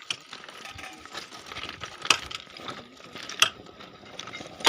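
Sharp knocks or strikes at a slow, even pace, the loudest three a little over a second apart from about two seconds in, over a faint steady hum, during railway track welding work.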